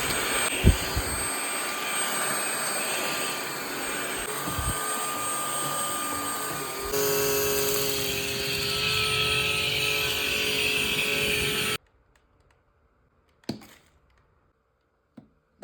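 MBYULO cordless vacuum's 600-watt motor running with a steady suction rush and whine. Its tone shifts about seven seconds in, and it cuts off abruptly near twelve seconds, followed by a few short knocks.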